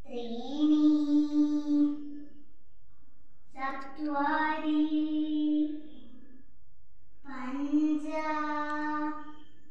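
A young voice singing three long held notes, each about two seconds with short pauses between, the pitch rising slightly at the start of each and then holding steady.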